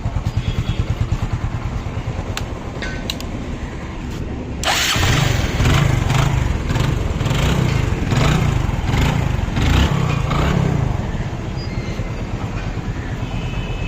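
Hero Glamour's single-cylinder four-stroke engine, freshly fitted with a new piston and rings, idling evenly, then revved from about four and a half seconds in with a string of quick throttle blips, a little over one a second, before settling back toward idle. The run is the check that the engine's noise problem is solved.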